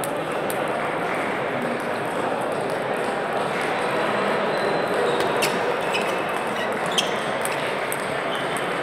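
Table tennis balls clicking off tables and bats at several tables, scattered and irregular, most of them in the second half, over a steady background murmur of voices in a large sports hall.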